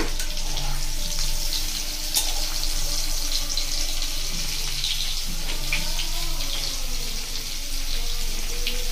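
Cauliflower, potato and carrot pieces sizzling steadily in hot oil in an iron kadai, with a few short scrapes of a metal spatula against the pan.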